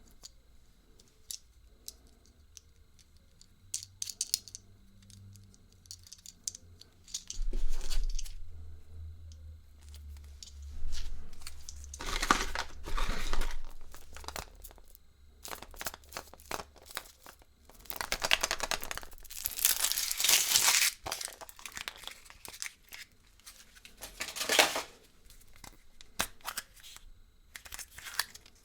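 Thin plastic or foil wrapping crinkling and tearing in hand, in irregular bursts, the longest a couple of seconds, with low bumps of handling in the first half.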